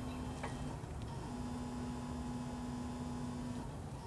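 Electric forklift's hydraulic pump motor running with a steady hum, cutting out for about half a second near the start and again near the end before starting up again with a brief slide in pitch, over a low rumble of wind on the microphone.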